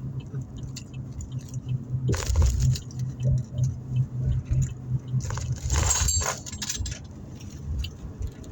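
Crinkly rustling of fast-food wrapping in two stretches, a short one about two seconds in and a longer one from about five to seven seconds, with small clicks between, over a steady low hum inside the car.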